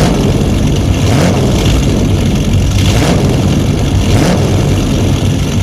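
A car engine running loudly and revving, with repeated surges about every second and a half.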